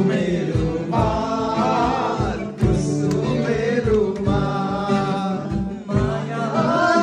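A group of men singing loudly together in unison, accompanied by a strummed acoustic guitar.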